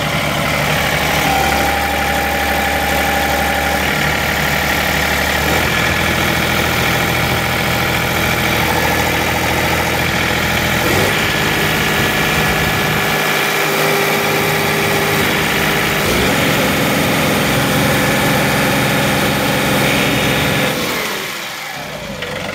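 John Deere 2038R's three-cylinder diesel engine running under hydraulic load, with the loader curl circuit held against its pressure relief valve. Engine speed is raised in steps about every five seconds, each step a higher steady note, then drops back and quietens shortly before the end.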